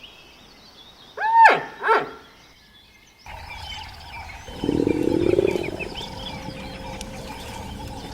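Animal calls: two loud pitched calls about a second apart, each rising and falling. Then, against a background of bird chirps, a low rough call comes about halfway through and is the loudest sound of the later part.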